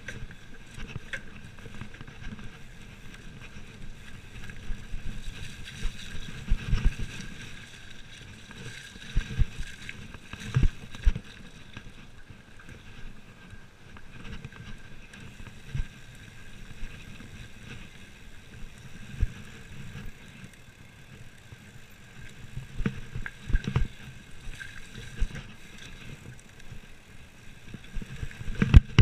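Mountain bike descending a dirt downhill trail, heard from a camera on the bike or rider: steady rolling and rattling noise with hard thumps from roots and bumps every few seconds, the biggest near the end.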